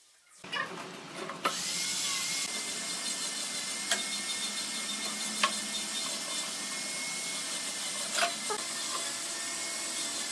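A steady mechanical hiss from a machine running in the workshop, with a few light sharp knocks and clicks as the wooden slats are handled and clamped.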